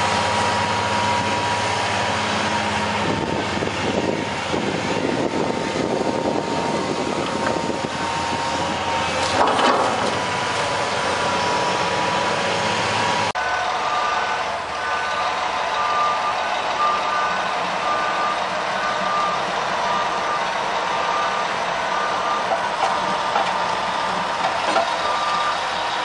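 Heavy construction machinery at a pipeline dig. A tracked excavator's diesel engine runs steadily with a constant whine. About halfway in, a backup alarm takes over, beeping about once a second over the machinery.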